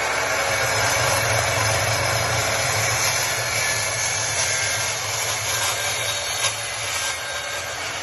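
Evolution dry-cut metal chop saw running and cutting through a steel tube: a steady, loud grinding whir that eases a little in level toward the end, with one short sharp tick partway through.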